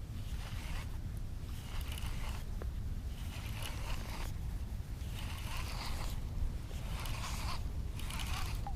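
Fishing reel being cranked in short bursts, a ratcheting, zipper-like whir about once a second, as a hooked trout is reeled in. A steady low rumble of wind and water runs underneath.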